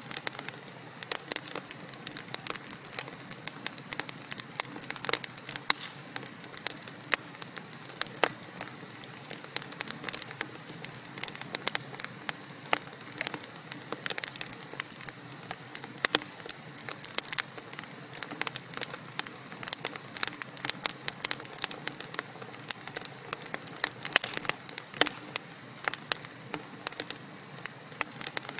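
Wood fire in a fireplace crackling: many sharp, irregular pops and snaps from burning logs over a soft steady hiss.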